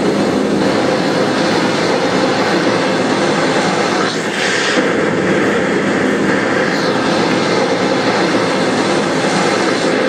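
Loud, steady roar of rushing tsunami water from disaster footage, played back over a hall's loudspeaker.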